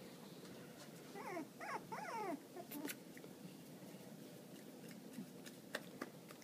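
Tibetan Terrier puppies whimpering: three or four short, falling, squeaky whines about a second in, then a few faint clicks.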